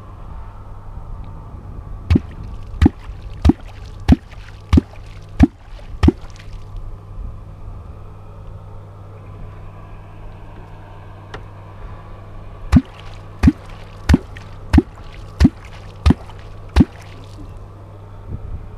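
Perm kvok (catfish clonk) struck into the water in two runs of seven deep 'kvok' strokes, about one and a half a second, with a pause of roughly six seconds between the runs. It is the sound used to call catfish up from the bottom to the bait.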